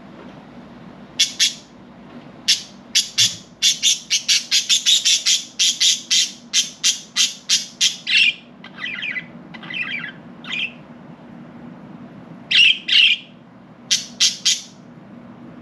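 Pet budgerigars chirping: after a short lull, a fast run of short, sharp chirps, then a few softer warbling calls, and two short groups of chirps near the end.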